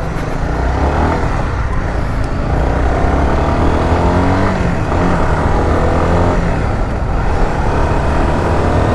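Honda CBR motorcycle under way, its engine note rising and dropping back several times as it accelerates through the gears. No chain noise is heard from the newly fitted RK O-ring chain.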